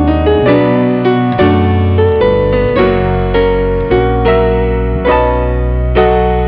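Background piano music: a gentle melody of notes struck about every half second over held low bass notes.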